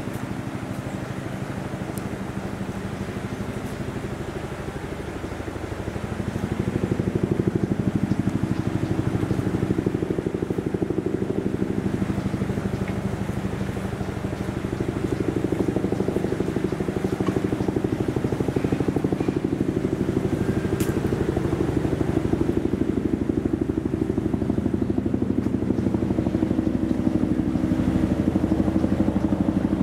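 A steady engine drone that grows louder about six seconds in and then holds.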